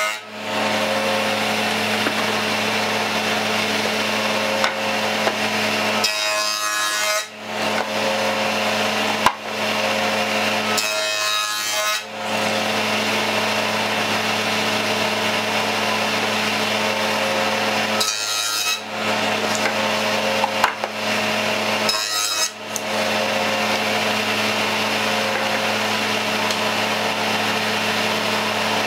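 Table saw running with a dado blade, cutting wood as a board is pushed through: a steady motor hum under the cutting noise, with several brief drops in level where the cut eases off.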